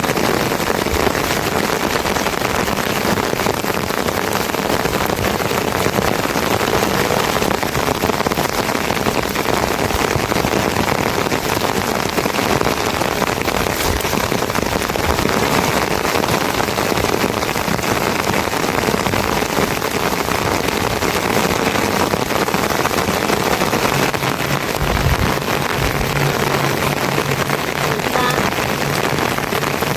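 Heavy rain falling steadily, an even hiss of drops. A faint low hum joins in over the last few seconds.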